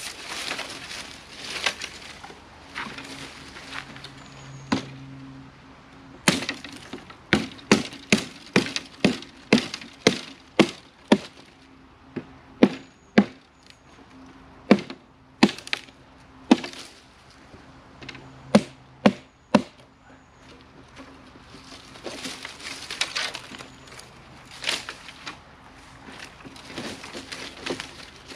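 Wood being chopped or split with a blade: about twenty sharp strikes, coming roughly two a second in runs with short pauses, from about six seconds in to about twenty seconds in. Rustling handling noise comes before and after the strikes.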